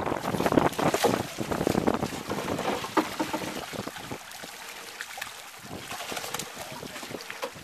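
A mass of fish splashing and thrashing at the water's surface in a pound net as it is hauled in, with the wet net being handled. The splashing is dense and loud for the first three seconds, then thins out to scattered splashes.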